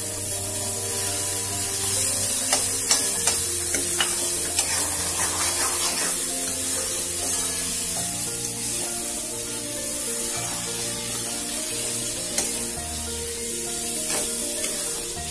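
Soya keema and green peas sizzling in a metal kadhai while a metal spatula stirs and scrapes the pan, with scattered clicks of metal on metal, over background music.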